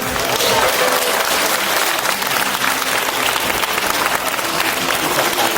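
Audience applauding, a dense steady clapping that breaks out at once and keeps up.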